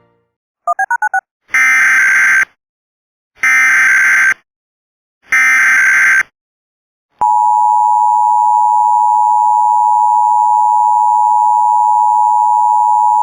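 Emergency Alert System test signal: four quick beeps, then the three one-second screeching data bursts of the SAME header with short pauses between, then the steady two-tone EAS attention signal from about seven seconds in.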